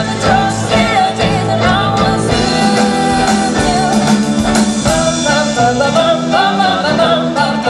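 Live pop-rock band playing, with guitars and drums under a lead vocal whose pitch slides and wavers.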